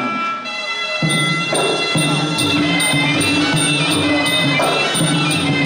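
Traditional Khmer boxing ring music: a sralai reed pipe plays a held, wavering melody. About a second in, drums and small chhing cymbals come in with a steady beat of about three strokes a second.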